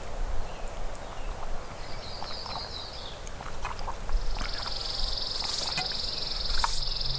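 An animal's high, even trill, a short one about two seconds in and then a longer one lasting about four seconds, over a low rumble of wind on the microphone. Near the end a fly starts buzzing close by.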